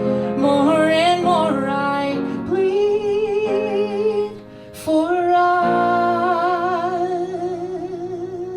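Closing bars of a musical-theatre song: a woman's voice holds long notes with vibrato over instrumental accompaniment. The sound drops briefly a little past four seconds, then a final long held note rings out.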